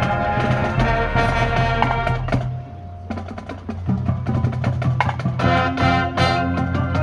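Marching band playing sustained brass and woodwind chords with drum-line percussion; the band drops back for a moment about two and a half seconds in, then comes back in full.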